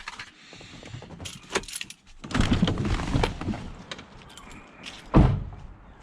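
Keys jangling and handling clatter, then a vehicle door shutting with one loud thud about five seconds in.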